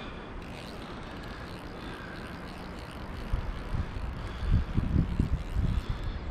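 Steady outdoor background rush. From about halfway through, irregular low rumbling thumps of wind buffeting the microphone grow louder.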